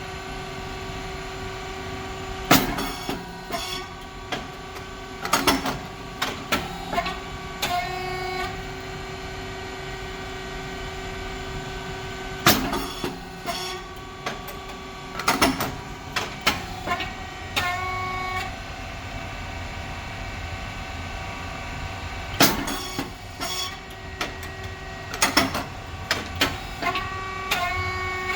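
Rice cake popping machine running through its production cycle: a loud pop and clatter about every ten seconds as the heated moulds release the puffed cakes, with a second burst of clatter about three seconds after each, over the steady hum of its hydraulic pump and motor.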